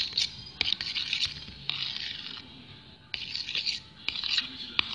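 A utensil scraping around the inside of a container while it stirs glue slime mixture, in repeated strokes about once a second with a few sharp clicks.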